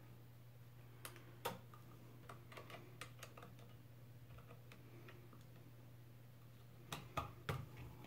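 Faint scattered clicks and ticks of a screwdriver and the metal terminals of an old wall outlet as its wires are being taken off, with a few sharper clicks about a second in and a short cluster near the end.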